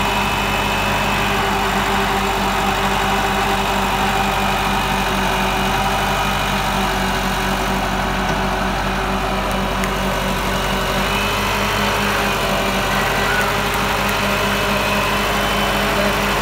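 Massey Ferguson 375 tractor's diesel engine running steadily, driving the hydraulics of a tractor-mounted backhoe as it digs.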